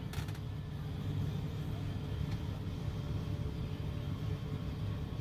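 Steady low rumble of an idling engine, heard from inside a semi-truck cab.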